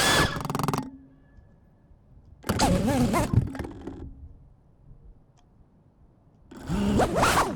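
A man's voice in three short anxious exclamations, with near silence in between: strained groans and pleading sounds while a crashed drone is being flipped back over.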